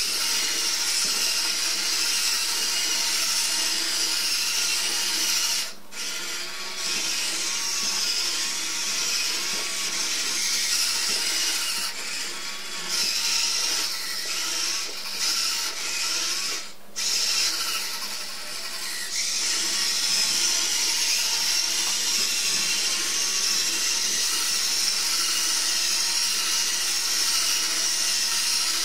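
A small green Android robot toy's motor and gears whirring steadily as it moves and turns. The whir breaks off briefly twice.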